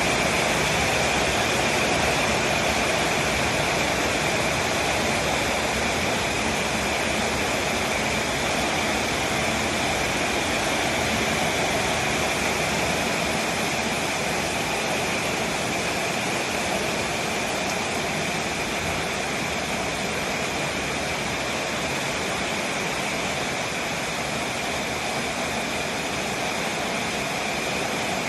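Heavy rain falling, an even steady hiss with no separate drops or knocks standing out.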